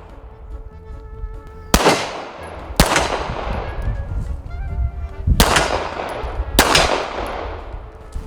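M-Arms Kratos 9mm 1911-style pistol fired four times, in two pairs about a second apart, each shot followed by a long echoing tail.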